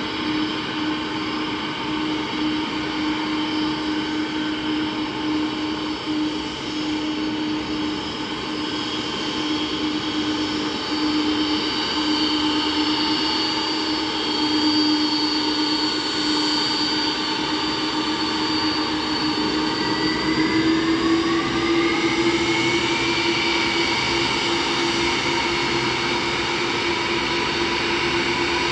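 The four jet engines of a Boeing 747-400 freighter whine steadily as it taxis and turns onto the runway. About two-thirds of the way through, one tone rises in pitch and the sound grows a little louder.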